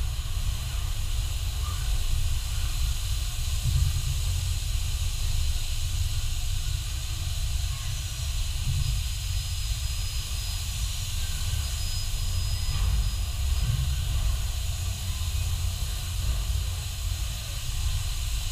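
Steady hissing air with a constant low rumble from a robotic car-body paint booth: the booth's airflow and the robots' paint atomizers at work.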